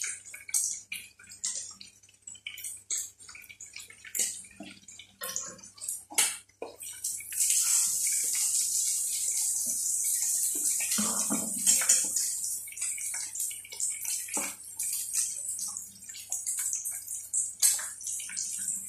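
Chicken pieces deep-frying in a pot of hot oil, with an egg frying in a pan: oil sizzling with many sharp crackles and pops, swelling into a louder, steady hiss from about seven seconds in until about twelve seconds.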